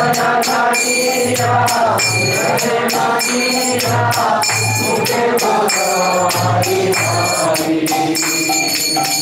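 Devotional kirtan: a group of voices singing the response line of a Bengali Vaishnava bhajan, with hand cymbals struck in a steady rhythm and a drum keeping time.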